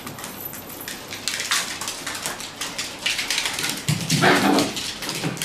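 Small dogs playing on a hard floor: quick clicks and scuffles of paws and claws. About four seconds in, one dog barks once, the loudest sound.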